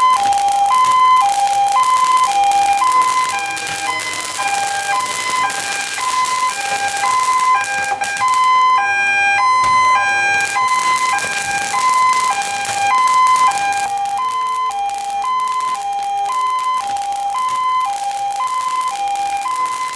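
Fire engine's two-tone hi-lo siren alternating steadily about once a second, loud throughout, with sharp firework crackles and hiss over it.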